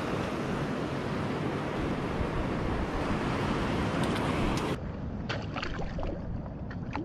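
Wind buffeting the microphone over sea surf. A little under five seconds in, the noise drops abruptly, leaving a few short clicks and splashes as a caught trevally is laid into a shallow rock pool among other fish.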